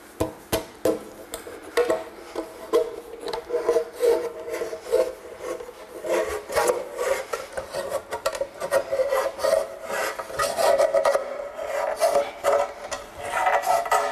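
Kitchen knife cutting through the lid of a large metal catering tin, worked around by hand to open it: repeated rough scraping strokes, a few a second, with the tin ringing.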